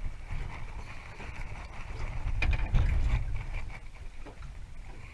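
Water slapping against the hull of a small aluminium boat, with wind rumbling on the microphone. A few sharp knocks and clicks about two and a half seconds in, where it gets briefly louder.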